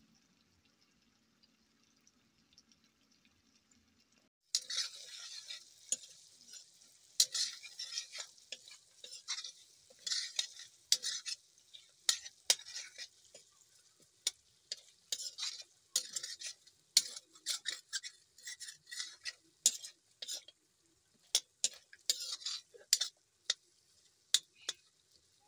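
A metal spoon stirring pork frying in a black iron wok: a run of sharp scrapes and clicks of the spoon against the pan over a steady sizzle, starting about four seconds in.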